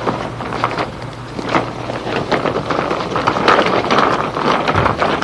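Folding umbrella stroller pushed over rough yard ground: its small plastic wheels roll and rattle, with irregular clicks and knocks, and a scraping noise swells for a second or two past the middle.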